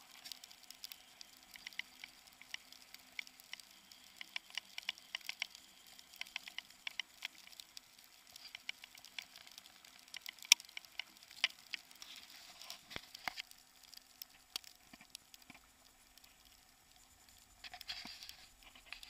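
Car driving on a snow-covered road, heard through a camera mounted outside the car: an irregular patter of ticks and crackles over a faint steady hum, with one sharper click about halfway through.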